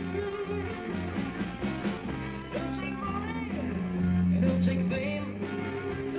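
Live pub band playing rock and roll on electric guitars, bass and drums, in a rough, low-fidelity recording.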